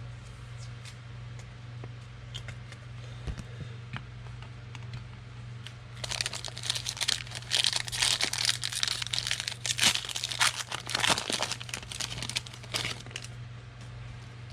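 Wrapper of a 2020 Score football trading-card pack being torn open and crinkled: a loud spell of crackling that starts about six seconds in and lasts several seconds, after a few faint handling ticks. A steady low hum runs underneath.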